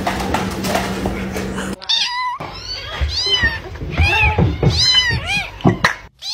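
Newborn kitten mewing over and over in short, thin, high cries that rise and fall in pitch, starting about two seconds in. Before that there is a stretch of noisy background with a low steady hum.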